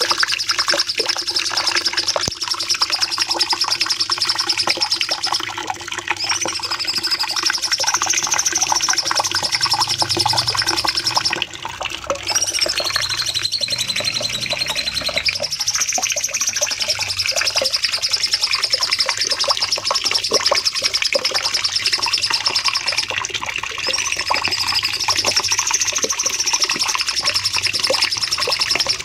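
Cucak cungkok (a songbird kept for song training) singing a long, unbroken, rapid high trill, the 'nembak panjang' shooting song, with a couple of wavering swoops in pitch along the way.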